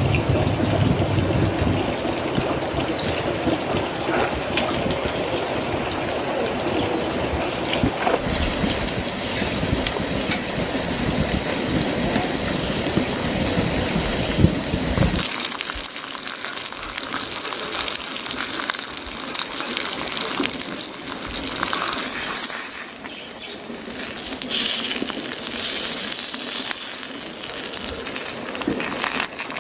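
Slices of meat sizzling in oil on a hot flat stone over a wood fire, a steady frying hiss. About halfway through the low rumble under it drops away, leaving the bright crackling sizzle.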